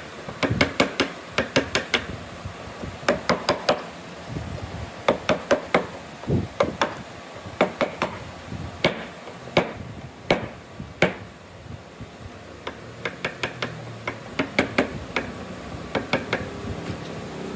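Wooden mallet striking a chisel driven into a clamped block of wood: sharp knocks in quick runs of three to five blows, with short pauses between runs.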